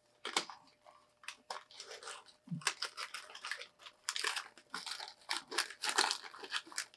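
Paper food packaging crinkling as it is handled close to the microphone, a run of irregular crackles that comes thickest about four to six seconds in.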